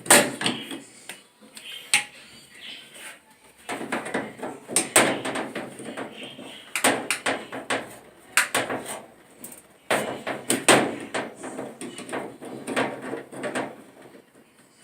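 Irregular knocks and clattering from parts and tools being handled while a clothes dryer is taken apart. The clattering comes in dense stretches between sharp single knocks.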